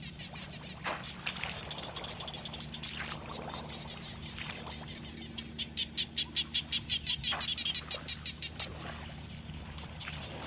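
An animal calling outdoors: a rapid, even run of short high chirps, about six a second for roughly three seconds in the middle, over a steady low hum and a few sharp clicks.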